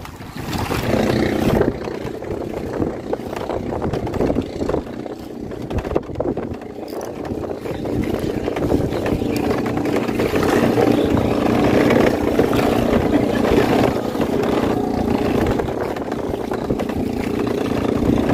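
A boat's engine running steadily; it grows a little louder about eight seconds in.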